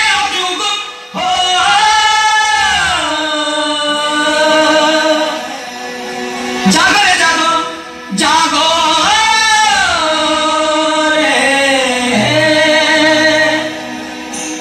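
Recorded Hindi song playing over stage loudspeakers for a dance: a singer draws out long, wavering notes over backing music, in phrases that start about a second in, near seven seconds, and just after eight seconds.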